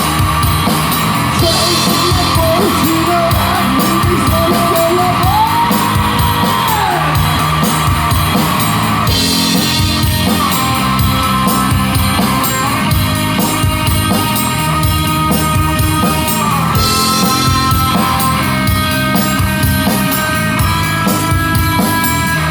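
Live rock band playing loudly and continuously: guitars, bass and drums, with a lead line that bends and glides in pitch in the first several seconds.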